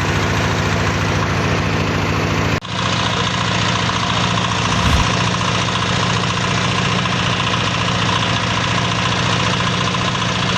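Feed-pellet making machine running steadily, a loud continuous mechanical drone. About two and a half seconds in, the sound breaks off sharply and resumes with a slightly different tone.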